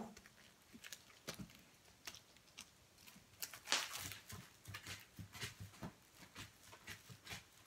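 Cooked sticky rice being shaken and knocked out of a woven sticky-rice steaming basket into a glass bowl: a string of soft, irregular taps and rustles, with one louder knock a little under four seconds in.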